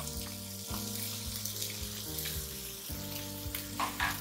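Freshly added chopped bell peppers, baby corn and French beans sizzling in hot oil in a kadhai, a steady frying hiss, with soft background music underneath.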